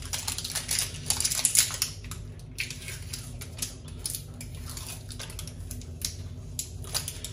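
Protective plastic film being peeled off the casing of a Blink video doorbell: a run of crackles and small clicks, busiest in the first couple of seconds, then sparser.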